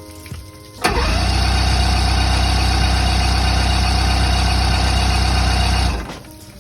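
Boat engine catching suddenly about a second in and running steadily for about five seconds on a test start, then cutting off abruptly.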